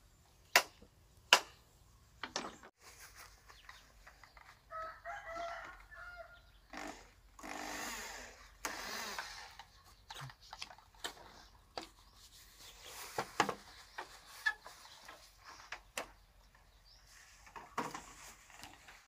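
A rooster crowing once, about five seconds in, among scattered sharp taps and knocks from handwork. Around eight seconds a couple of seconds of rougher, hissing noise.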